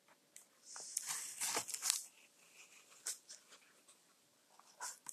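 Paper rustling and handling, as of a picture book's page being turned, clustered about a second in, followed by a few soft clicks.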